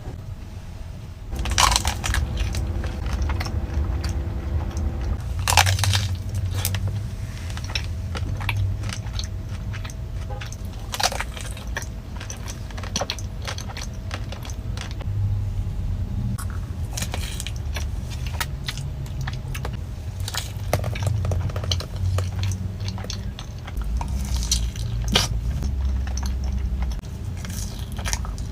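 Close-up eating sounds: chewing and crunching of desserts, with frequent sharp clicks and rustles of packaging and utensils, over a steady low rumble.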